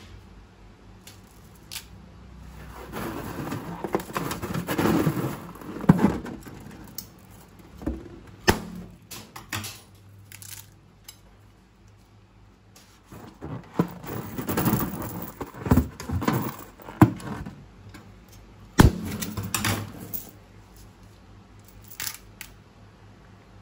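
Slime being squeezed and worked by hand, with wet crackling and clicking in two bouts and a quiet spell between them.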